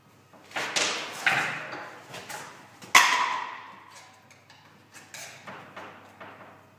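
Hard plastic knocks and clicks as a plastic waste trap is pushed onto a bath's outlet and a screwdriver works at the fitting, the bath shell ringing briefly after each knock. The loudest is a sharp knock about three seconds in, followed by lighter taps and clicks near the end.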